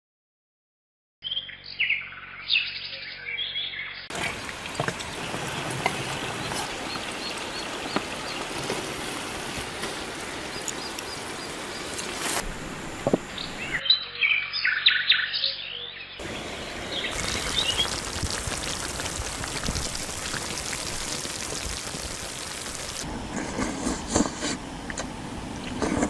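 Birds chirping in short gliding calls, with long stretches of steady rushing noise from running stream water between them.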